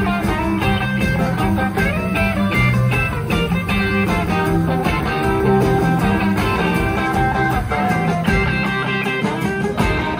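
Live rock and roll band playing at a steady beat, with electric guitar to the fore over drums.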